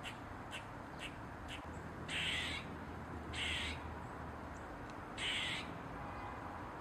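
Eastern gray squirrel alarm-calling: a few short clicking chucks, then three louder, raspy barks, each about half a second long.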